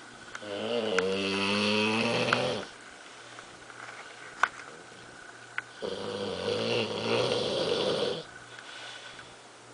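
English bulldog snoring in its sleep: two long rasping snores a few seconds apart, with a few short sharp clicks between them.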